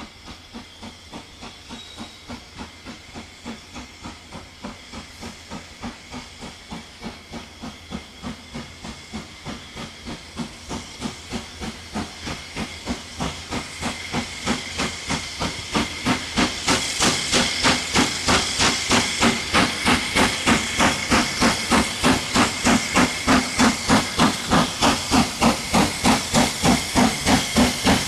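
Steam locomotive working a train toward the listener: a steady beat of exhaust chuffs, about three a second, growing louder as it draws near and loudest over the second half.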